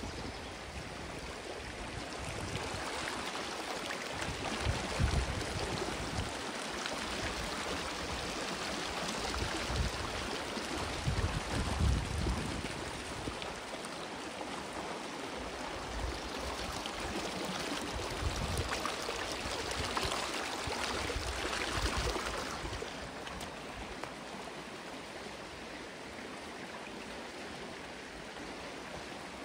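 Creek water running, a steady rushing sound of a stream flowing over rocks, broken now and then by low thumps of wind on the microphone. The rush drops a little in level about two-thirds of the way through.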